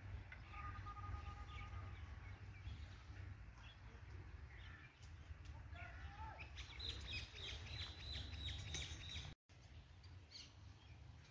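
Small birds chirping in the background, with a quick run of repeated high chirps a little past the middle, over a steady low rumble. The sound drops out for a split second near the end.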